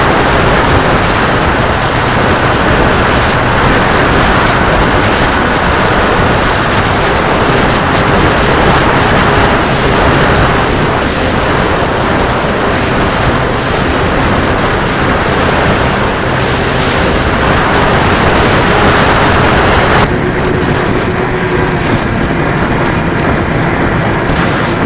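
Heavy wind noise buffeting the microphone, with a faint steady hum underneath. About twenty seconds in, the wind noise loses some of its hiss.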